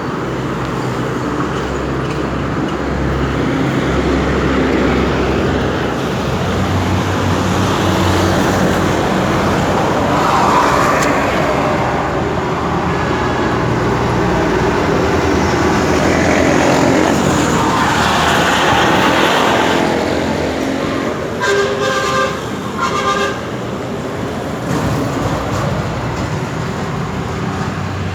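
Road traffic noise, with vehicles passing and swelling louder twice. A vehicle horn honks in two short blasts about three-quarters of the way through.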